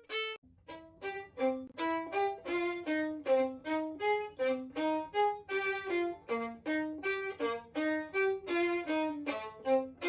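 Real acoustic violin, not a sampled one, playing a quick arpeggio figure in short, detached notes, about four or five a second.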